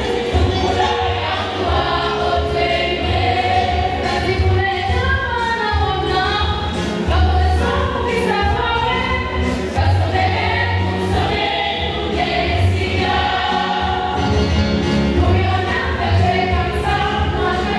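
A choir of schoolgirls singing together, led into a handheld microphone, with no break.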